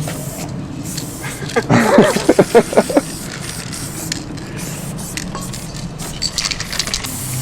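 Aerosol spray paint can hissing steadily as paint is sprayed onto a wall, with a quick run of clicks near the end.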